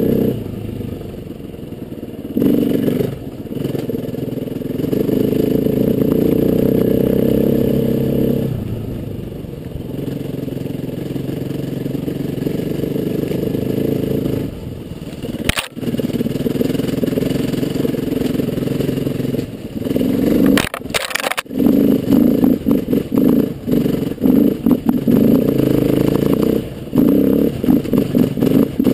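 Trail motorcycle engine running as it is ridden, the throttle opening and easing off in long stretches. There is a sharp knock about halfway through and a brief clatter a few seconds later, and near the end the engine note turns choppy with quick bursts of throttle.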